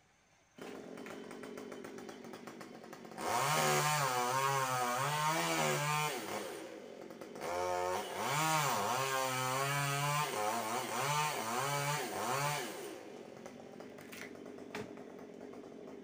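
Chainsaw engine starting up about half a second in and running at idle, then revved hard in two long bursts with the pitch rising and falling, with a short dip between them. It drops back to idle and stops near the end.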